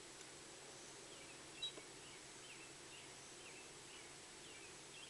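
Near silence with faint, short bird chirps repeating about twice a second, and a single light click about a second and a half in.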